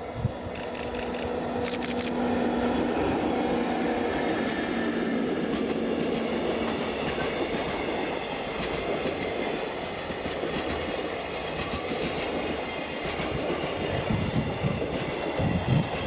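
JR EF64 electric locomotive hauling a long container freight train past, with the steady rolling rumble of the wagons' wheels on the rails throughout. A steady hum from the locomotive stops after a few seconds, wheels click over rail joints, and a brief high wheel squeal comes about twelve seconds in.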